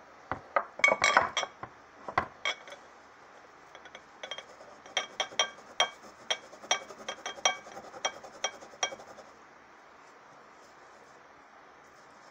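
Glass jar clinking as it is handled and rubbed by hand to clear its label residue: a cluster of sharp knocks about a second in, then a run of light, ringing clinks, about three a second, that stops about three-quarters of the way through.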